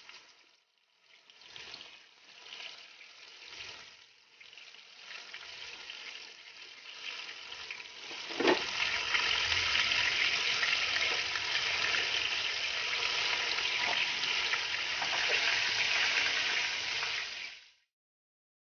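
Battered buffalo-meat chops deep-frying in a wok of hot oil: a bubbling sizzle, faint and uneven at first, that turns loud and steady after a knock about halfway through, then cuts off just before the end.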